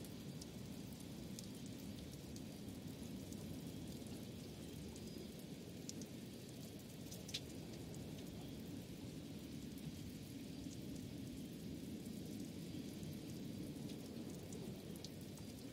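Steady low rumbling ambient noise with scattered faint ticks and one sharper click about seven seconds in.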